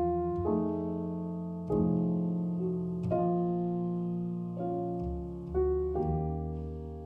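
Background music: slow, soft piano chords, a new chord struck about every second or so and left to ring out.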